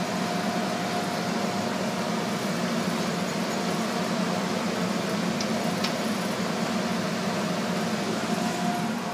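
Steady hum and whir of running sock-mill machinery, with a thin steady tone that drops out near the end and a couple of faint ticks.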